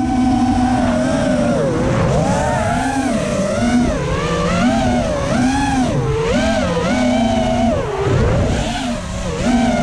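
FPV racing quadcopter's brushless motors and propellers whining, the pitch swinging up and down about once a second as the throttle changes through turns, over a rush of wind noise.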